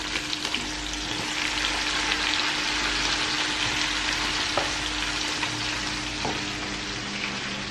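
Red palm oil sizzling steadily in a large aluminium pot as dried fish is added to fry, with a few small clicks and a faint steady hum underneath.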